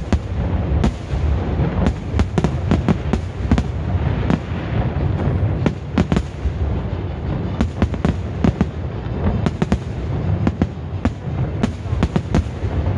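Fireworks display going off in a dense, continuous barrage: many sharp bangs and crackles in quick succession over a steady low rumble.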